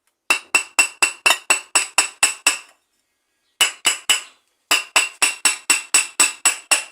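Rapid hammer taps on metal with a ringing note, about four a second in three runs (about ten, then three, then nine), driving a washing machine's transmission bearing back into its seat in the plate, where punch notches were raised so it grips tight.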